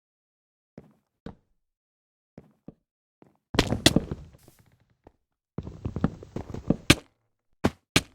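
Scattered soft knocks, then two stretches of quick clattering thumps, each about a second long, and two sharp knocks near the end.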